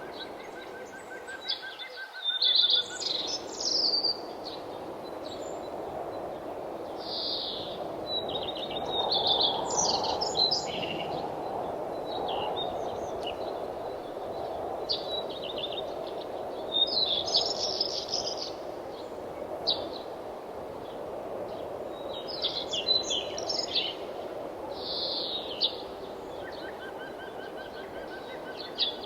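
Several songbirds chirping and singing in repeated high phrases over a steady rushing background noise. A quick run of evenly spaced, lower, even-pitched notes sounds about a second in and again near the end.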